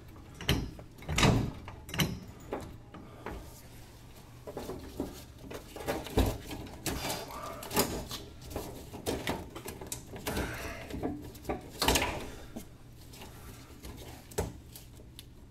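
Irregular clunks, knocks and rustles from working under a car: a floor jack and a metal underbody part being shifted and positioned by hand. The knocks come singly at uneven intervals, with one of the loudest about three quarters of the way through.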